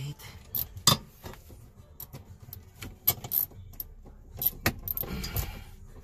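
Plastic centre-console trim of a Honda Accord clicking and knocking as it is handled and pressed back into place around the shifter: a scatter of sharp clicks, the loudest just under a second in, with a short rustle near the end.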